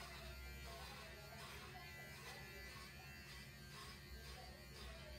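Electric pet hair clippers buzzing steadily while clipping a cat's fur short.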